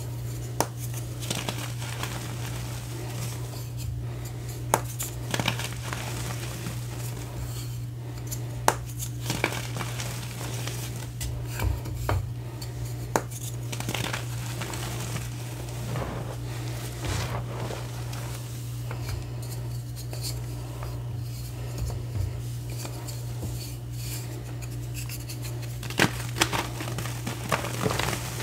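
Blocks of reformed gym chalk crushed and crumbled by hand in loose chalk powder: irregular sharp crunches and cracks with dry, powdery crumbling between them, over a steady low hum.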